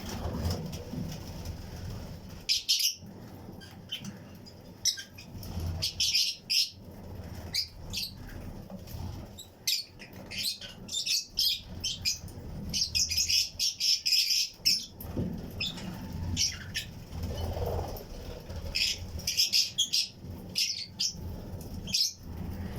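A colony of Fischer's and lutino lovebirds chirping in many short, sharp calls, busiest about two thirds of the way through, with wing flapping in the flight cage.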